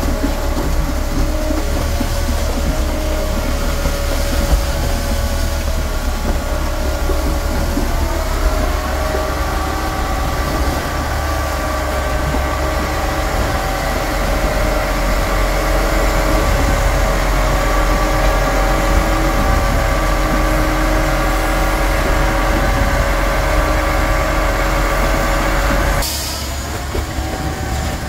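Truck-mounted concrete boom pump and concrete mixer truck running while concrete is pumped into a foundation: a steady loud diesel drone with held, slightly wavering whining tones from the machinery. Near the end the sound changes abruptly and becomes quieter.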